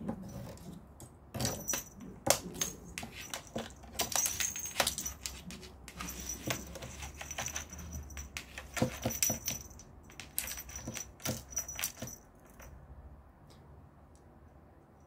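A small bell on a feather wand cat toy jingling and rattling in irregular bursts as the wand is jiggled. It starts about a second and a half in and dies away around twelve seconds in.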